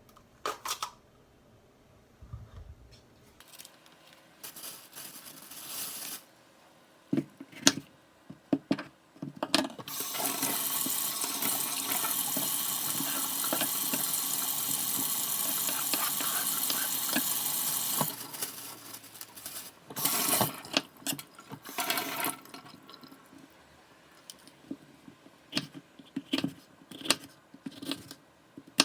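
Water running steadily for about eight seconds in the middle, with scattered clicks and knocks before and after.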